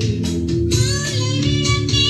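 Recorded music with guitar, played back through a Sansui stereo amplifier and speakers; a new set of brighter notes comes in about three-quarters of a second in.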